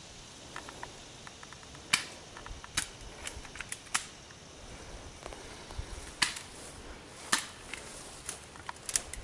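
Spring-powered airsoft guns firing during an exchange: single sharp snaps at irregular intervals, several seconds apart at times, over a steady background hiss.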